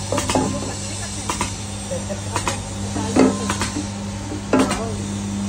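Dough-ball (loya) cutting machine running: a steady motor hum with repeated metallic clacks, roughly one a second, as the cutter chops the dough into balls.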